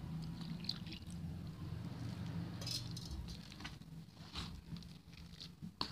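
A metal spoon stirring a wet wheat-flour batter in a steel bowl: soft squishing with scattered light scrapes and clinks of the spoon against the bowl, and one sharper click near the end. A steady low hum runs underneath.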